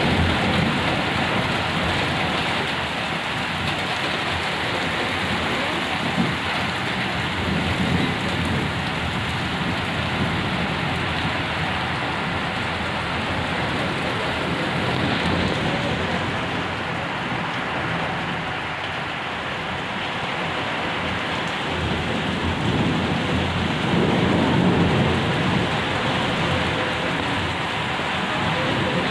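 Heavy rain pouring steadily, with low rumbles of thunder swelling and fading several times, the strongest about three-quarters of the way through.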